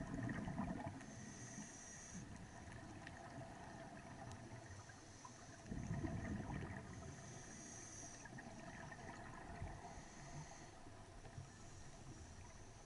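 Scuba diver breathing through a regulator underwater: two louder bursts of exhaled bubbles, at the start and about six seconds in, with a high hiss from the regulator coming and going between them.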